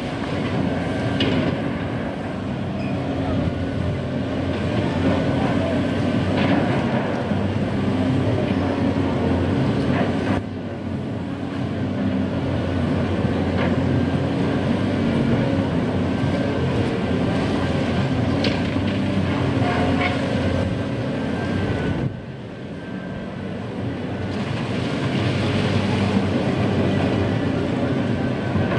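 Caterpillar 330D tracked excavator's diesel engine running steadily under working load, with a few sharp clanks of metal and rock as it digs. The sound changes abruptly twice, about ten and twenty-two seconds in.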